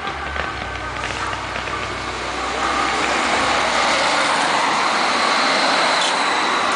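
Fireworks burning with a steady hiss that swells about two and a half seconds in, as a low cluster of sparking white, green and gold effects goes up.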